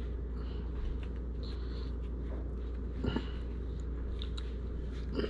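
Soft crunching and rustling of shredded lettuce and toasted bread as it is handled and pressed into a hot dog bun, over a steady low hum. Two brief louder bumps come about three seconds and five seconds in.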